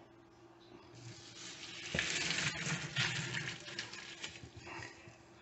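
Boiling pasta water and spaghetti poured from a pot into a plastic colander, the water rushing and splashing through into a stainless steel sink. The pour comes in with a knock about two seconds in and tails off near the end.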